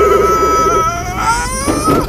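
A man's long, high-pitched squeal of excitement, held steady and then rising in pitch, over the low running of the small car's engine.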